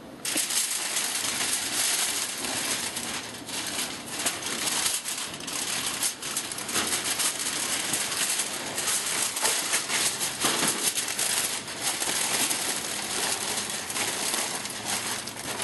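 Heavy-duty aluminum foil crinkling and crackling as it is pulled from the roll and folded around smoked meat.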